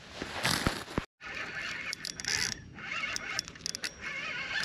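Handling rustle, then a spinning fishing reel being cranked: a scratchy whir with many fine clicks.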